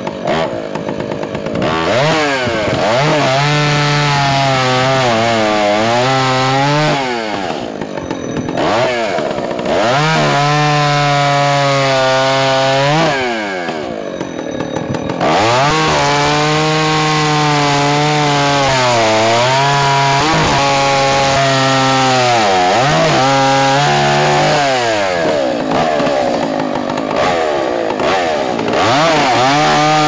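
Vintage Husqvarna 1100 two-stroke chainsaw with a bow bar cutting oak logs, its engine pitch sagging under load in each cut and climbing again between cuts. Twice, about eight and fourteen seconds in, it eases off briefly to a lower, quieter speed.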